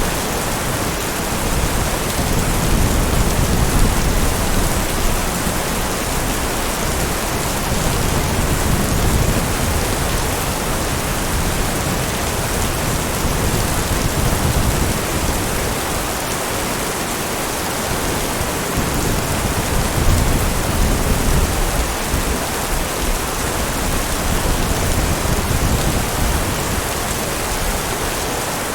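Steady heavy rain falling, with low rumbles of thunder swelling and fading at times.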